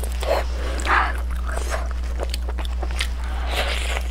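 Close-up eating sounds of someone biting and chewing a red-braised pork knuckle: irregular wet smacks and chewing noises with small clicks, over a steady low hum.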